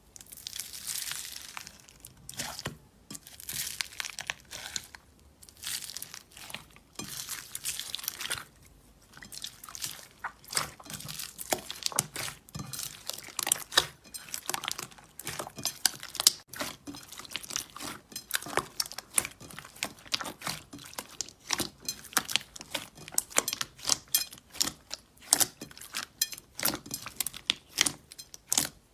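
Slime being squeezed and pressed, making crinkling, crackling sounds. Over the first third there are several longer noisy stretches; after that comes a dense run of sharp pops and clicks.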